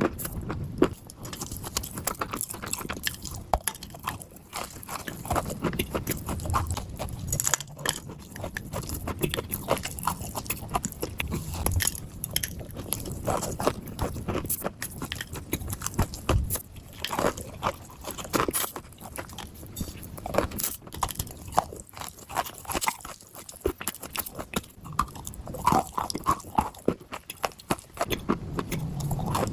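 A person biting and chewing pieces of dry clay, with many irregular crunches.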